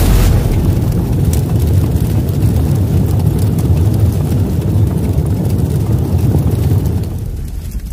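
Deep, steady rumbling sound effect from an animated intro, with no clear pitch, that fades away near the end.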